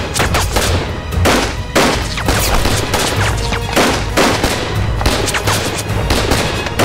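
Gunfire from a staged gunfight: a string of shots at irregular intervals, sometimes several a second, over background music.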